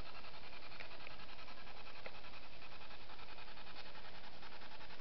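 Steady background hiss with a faint, even grain and a few soft clicks about one and two seconds in.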